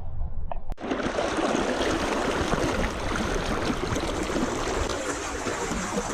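Steady rushing of a flowing stream, cutting in abruptly under a second in after a brief low rumble.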